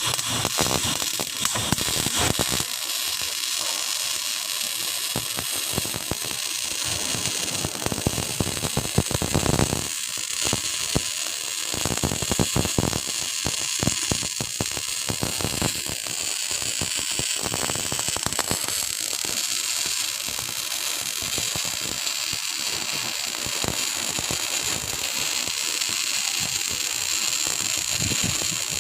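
Welding arc crackling and hissing, an irregular run of sharp pops over a steady high hiss, from a welding machine being tested after long disuse.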